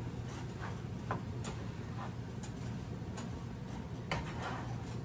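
Spatula clicking and scraping against a skillet as a simmering ground-meat mixture is stirred: irregular light clicks over a steady low hum.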